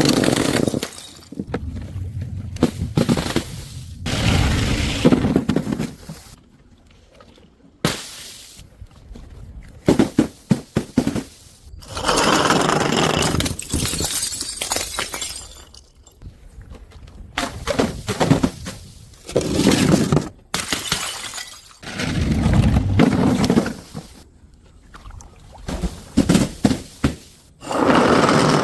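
Glass bottles smashing on stairs one after another, a series of loud shattering crashes and crunches a few seconds apart.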